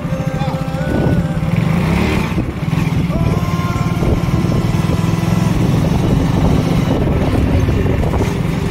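Motorcycle engine running steadily while riding, with low rumble throughout.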